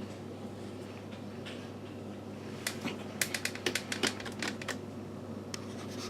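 A quick, irregular run of sharp clicks and taps about halfway through, with a few more near the end, over a steady low hum.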